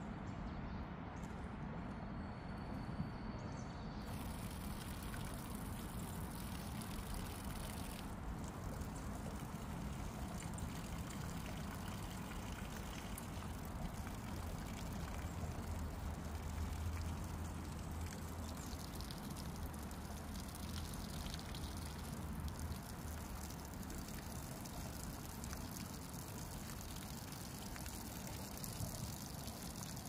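Water from a garden hose spraying and splashing steadily onto freshly planted soil, watering in transplanted seedlings.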